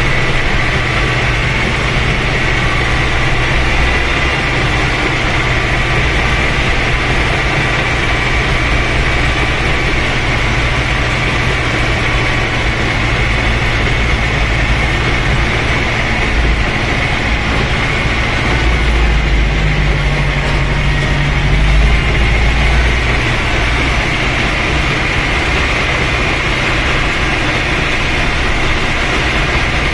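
Ursus C-360 tractor's four-cylinder diesel engine running steadily under load while pushing snow, heard from inside the cab. Around twenty seconds in, its low note grows stronger and a little louder for a few seconds.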